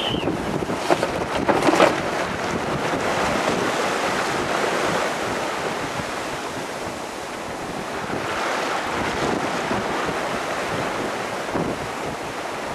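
Strong wind buffeting the microphone over the rush of waves and water around a small sailboat under sail in heavy weather, with a few louder buffets about one to two seconds in.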